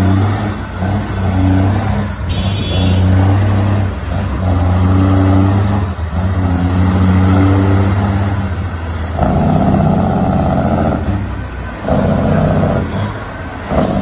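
Peterbilt 379 tractor's diesel engine pulling a bulldozer load at low speed: a deep, steady note that swells and eases every couple of seconds, turning rougher from about nine to twelve seconds in.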